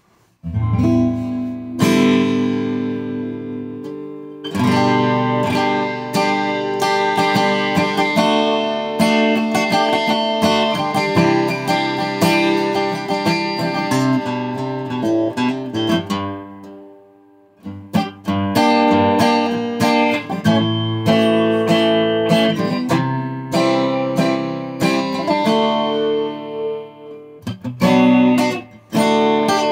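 Taylor 324ce V-Class acoustic-electric guitar being played: chords strummed and picked, ringing out. There is a short break a little past halfway before the playing resumes.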